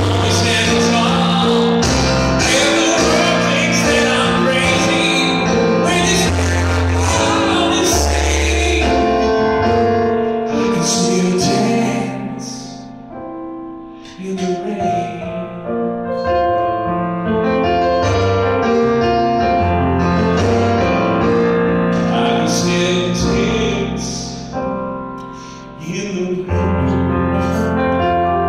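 A man singing a pop ballad live, accompanying himself on an electronic keyboard. The music thins out briefly about halfway through and again near the end.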